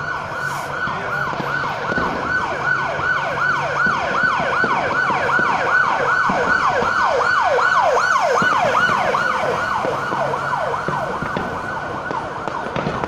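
Emergency vehicle siren in a fast yelp, sweeping down about three times a second. It grows louder toward the middle, then fades as the vehicle passes.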